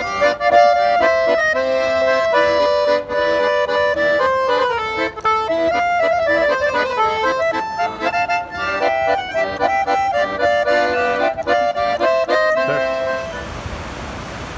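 Piano accordion played by a street musician: a tune with several notes sounding together. It stops about 13 seconds in, leaving a steady hiss.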